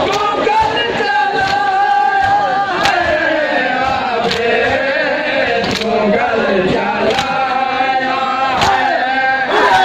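Male voices chanting a noha, a Shia lament, in long held lines, with the mourners' open-hand chest-beating (matam) landing in a steady beat about one and a half strikes a second.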